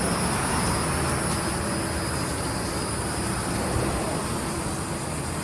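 Steady outdoor rush of wind and distant road traffic, slowly fading.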